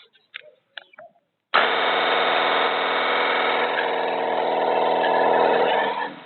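Battery-powered cordless pressure washer's electric motor and pump starting suddenly about a second and a half in, with the trigger held, and running steadily with a constant pitch before winding down near the end. A few light handling clicks come before it.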